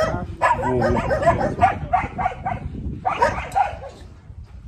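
Yard dogs barking in quick runs of several barks a second, with a short pause about two-thirds of the way through and dying down near the end.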